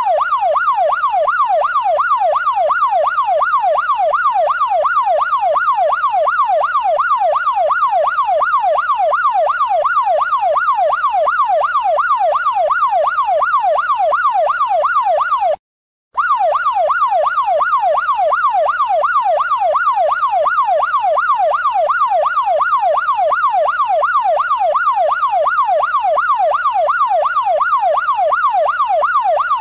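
Electronic police siren in a fast yelp, its pitch sweeping up and down about twice a second, with a brief cut to silence about halfway through.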